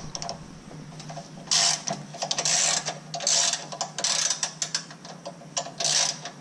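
Socket ratchet clicking in short bursts, about one a second, as it is swung back and forth to back out a bolt on a lawn tractor's transmission mount. The clicking starts about a second and a half in.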